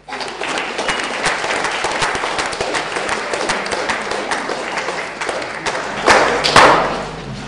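Audience applauding: a dense, even patter of many hands clapping. About six seconds in come two louder knocks.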